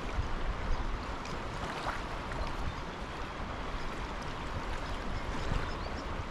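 Snowy River running: a steady rush of flowing water.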